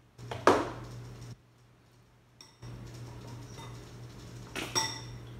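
Spoon knocking against a bowl twice, once about half a second in and again near the end, the second a ringing clink.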